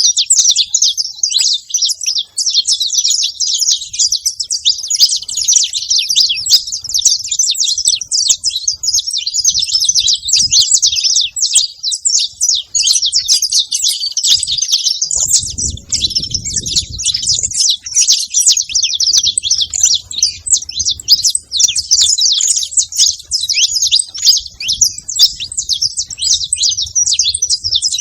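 Saffron finches chirping and calling at a feeding spot, a dense, continuous high-pitched chatter of overlapping calls.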